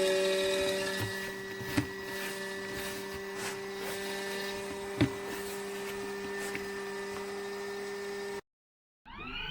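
Small electric motor of a portable mini washing machine running with a steady hum, with a couple of sharp knocks. Near the end the sound cuts out briefly and a motor starts up again, its pitch rising as it spins up.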